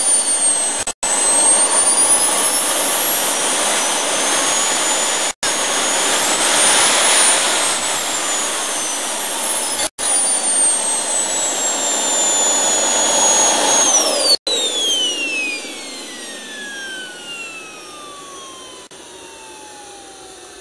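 Kingtech K140F model jet turbine running with a loud, high whine that rises and falls in pitch as the throttle is moved. About fourteen seconds in, it gets quieter and the whine slides steadily down in pitch as the turbine winds down.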